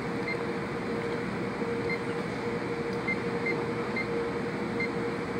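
Steady hum and hiss of running workshop machinery with one steady mid-pitched tone, and several faint, short, high beeps at uneven intervals.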